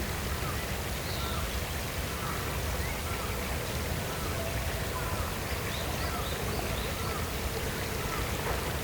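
Steady rush of flowing water, with faint short bird chirps scattered through it.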